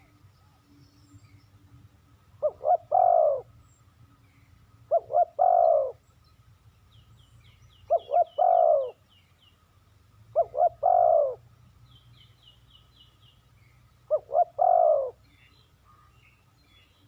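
Spotted dove cooing: five calls a few seconds apart, each two or three short quick notes followed by a longer coo that falls in pitch.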